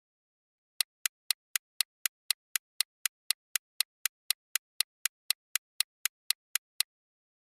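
Countdown timer sound effect: a clock ticking about four times a second, sharp dry clicks with every other tick slightly louder. It starts just under a second in and stops about six seconds later.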